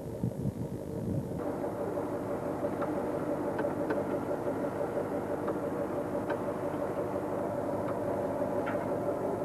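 Wind buffeting the microphone, then, after a cut about a second and a half in, the fishing boat's engine running with a steady hum in the wheelhouse, with a few faint clicks.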